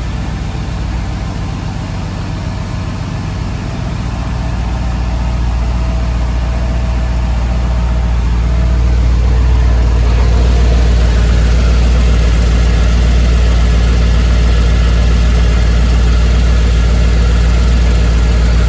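LS1 5.7-litre V8 in a Nissan 300ZX idling steadily during a leak check after an oil pan replacement. It grows louder over the first several seconds, then holds steady.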